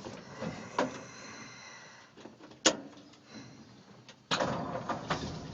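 A few clicks and one sharp snap, then about four seconds in the 1951 Ford pickup's flathead engine fires and settles into a steady, low idle.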